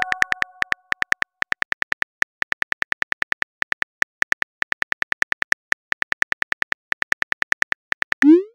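Phone keyboard typing sound effect: a rapid, steady run of short clicks as a text message is typed out. Near the end it gives way to a rising whoosh as the message is sent.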